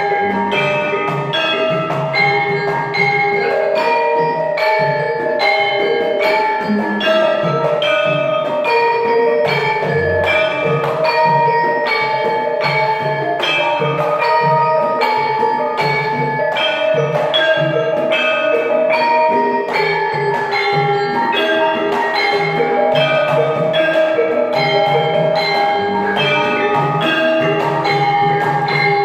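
Javanese gamelan ensemble playing: bronze saron and bonang keys sound a steady stream of struck, ringing notes over kendang drum strokes.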